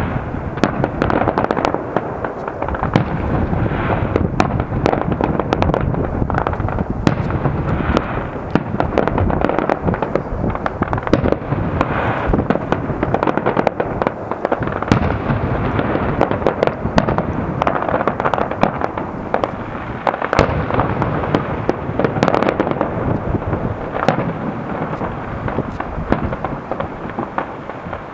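Fireworks salute: a loud, dense, unbroken crackle of many overlapping bangs and pops.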